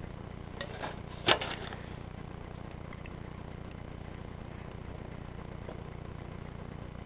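Steady low hum of idling police cars, heard through a closed window. A sharp knock comes a little over a second in, just after two lighter taps.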